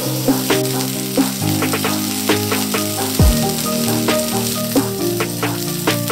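Rack of lamb searing in a hot cast-iron skillet: a steady sizzle with scattered crackles and pops. Background music plays with it, with held tones and one deep drum hit a little past halfway.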